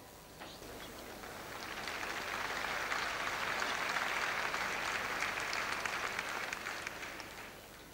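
Audience applauding: many fast overlapping claps that swell over a couple of seconds and die away near the end.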